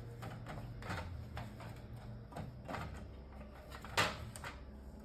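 Scattered light clicks and taps of server hardware being handled, over a low steady hum, with one sharper click about four seconds in.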